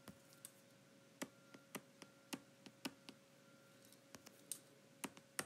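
Faint, irregular taps and clicks of a stylus tip on a tablet's glass screen while numbers are handwritten, about a dozen spread through the stretch.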